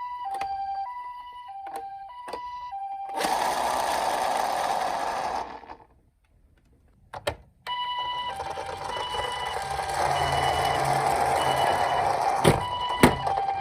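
Toy ambulance minicar's electronic hi-lo siren, alternating between two tones about every half second. A loud rough whirring comes in about three seconds in and stops briefly midway. The siren returns with the whirring, and two sharp knocks come near the end.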